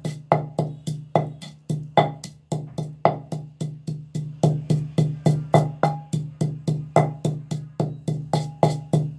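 Wooden pestle pounding green chillies and salt in a terracotta mortar: steady, sharp knocks at about three to four a second, each with a short ring from the clay bowl. The pounding stops suddenly near the end.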